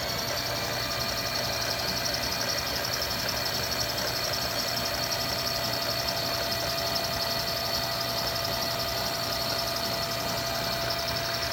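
Milling machine table power feed running steadily, a motor hum with a high whine, traversing the table.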